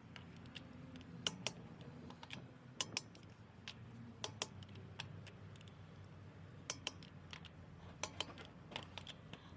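Irregular sharp clicks and light taps, sometimes two in quick succession, over a low steady hum.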